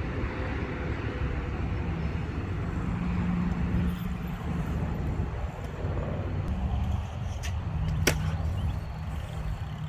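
BMX bike tyres rolling over pavement with a steady low rumble and hum, and a sharp click about eight seconds in.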